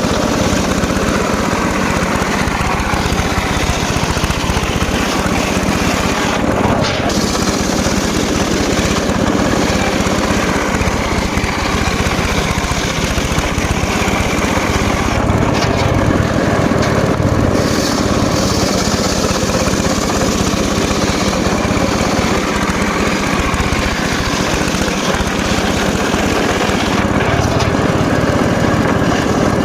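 Homemade motor-driven circular saw running steadily under load while slicing teak wood, an unbroken mechanical drone of engine and blade with no pauses.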